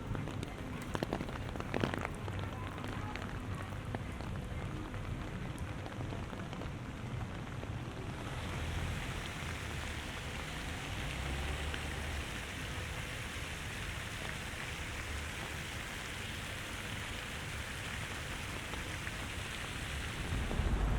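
Rain falling steadily in a storm, with scattered drip clicks in the first seconds; the hiss of the rain grows stronger about eight seconds in.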